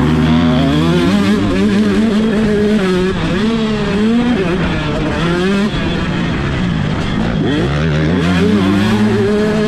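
125cc two-stroke motocross bike engine at race pace, revving hard, its pitch climbing and dropping again and again through gear changes and throttle, with a deeper dip a couple of seconds from the end before it climbs again.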